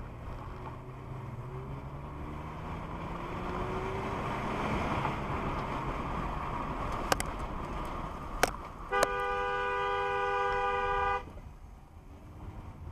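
Car driving along with road and engine noise, the engine hum rising in pitch as it accelerates, then two sharp clicks and a car horn sounding one long blast of about two seconds, cut off suddenly.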